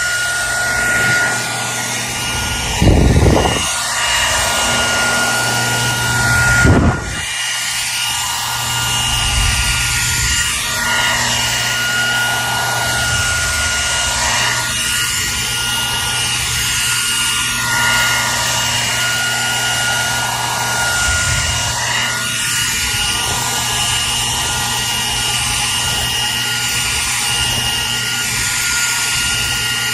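Hair dryer running steadily: a continuous rush of blown air over a steady high motor whine and a low hum. Two brief low thumps come in, about three and seven seconds in.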